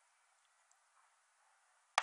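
Faint hiss with a few small distant pops, then the sharp bang of an aerial firework shell bursting right at the end.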